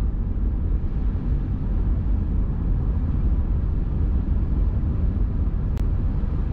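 Car driving at steady speed, with a steady low rumble of engine and road noise heard inside the cabin.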